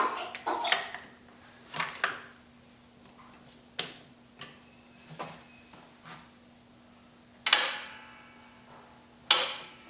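Separate sharp knocks and clacks of tools being fitted and handled on a Porsche 911 GT3's centre-lock wheel nut, about eight of them, the loudest two in the second half, over a faint steady hum.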